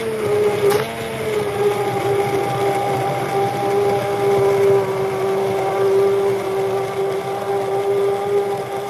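Handheld immersion blender running steadily in a pot of broccoli soup, pureeing the cooked broccoli and carrots, its motor a steady hum; a sharp click about a second in.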